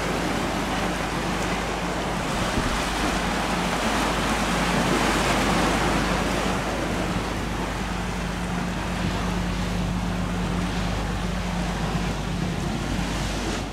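Center console boat's engines running with a steady low hum over a dense rush of waves and wind, a little louder around the middle.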